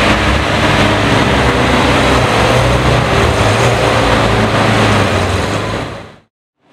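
Lamborghini Aventador S's V12 engine running at a steady low speed as the car creeps past, loud and even in pitch, then fading out to silence near the end.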